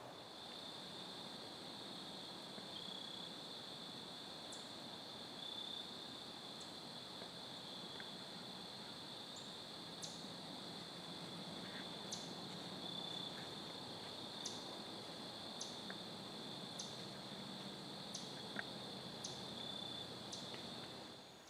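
Faint woodland ambience: insects trilling steadily at a high pitch, with short high ticks repeating about once a second.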